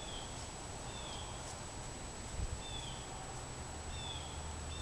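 A bird repeating a short, high, falling chirp five times, about once a second, over a faint steady high whine and low hum. There is a soft thump a little past halfway.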